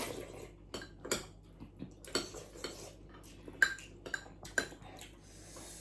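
Cutlery clinking and tapping against dishes while eating: a run of irregular sharp clinks, some ringing briefly, the loudest about three and a half seconds in.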